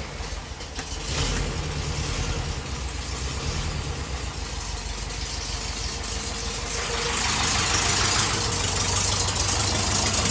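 1977 VW Westfalia bus's air-cooled flat-four engine running at idle, growing louder about seven seconds in. It is burning off leftover brake fluid drawn into the intake through the brake booster's vacuum line after the master cylinder failed.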